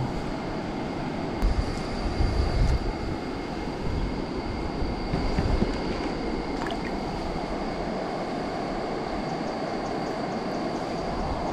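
Steady rush of river water running over a rocky, shallow bed, with a few low bumps and rumbles about one and a half to three seconds in and again around five to six seconds.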